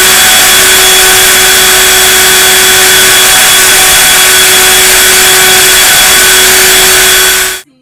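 Loud, steady machine-like noise with a few held tones in it, unchanging until it cuts off abruptly near the end.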